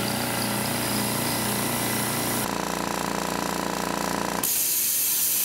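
Rolair JC10 air compressor's motor and pump running, the note changing about halfway through. It shuts off a little over four seconds in and a steady hiss of escaping air takes over, which the owner traces to air leaking from the new unloader solenoid valve.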